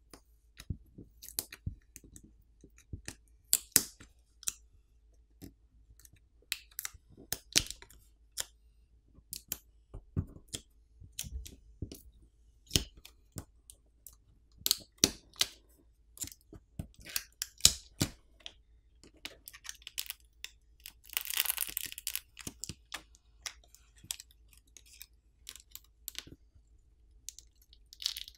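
Scattered small clicks and taps of fingers handling an opened smartphone while pulling on the battery's adhesive pull tabs, with a brief scratchy tearing sound about three-quarters of the way through as the adhesive gives.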